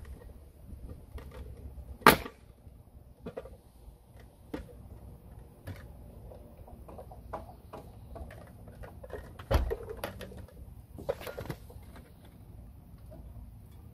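Scattered light clicks and knocks of hand work, with one sharp, loud impact about two seconds in and another strong knock near the ten-second mark.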